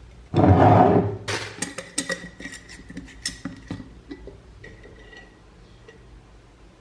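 A spoon scraping against a cooking pot of thick, cooked oatmeal, then a run of sharp clinks of the spoon on the pot that thin out over a few seconds.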